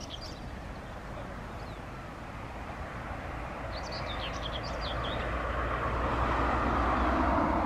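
A road vehicle passing along the road behind the field, its tyre and engine noise swelling steadily to a peak near the end, with a few short bird chirps over it.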